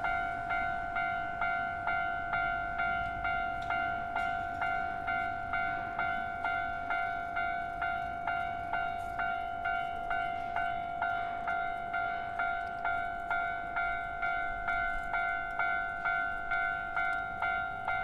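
Japanese railway level crossing alarm ringing its electronic bell, a steady clang repeating about twice a second, warning that a train is approaching.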